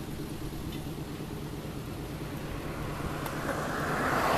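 Diesel engine of Hoji 3, the restored 1914 wooden light-railway railcar, idling with a steady low rumble as it waits to depart. Near the end a broad hiss swells up over it.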